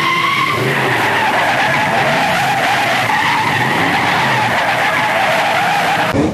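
Car engines racing, with tyres screeching; the sound cuts off suddenly near the end.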